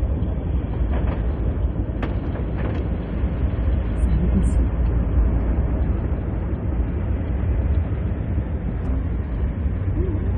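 Steady low rumble with a hiss of heavy rain, heard from inside a car on a flooded road, with a few faint clicks about two seconds in.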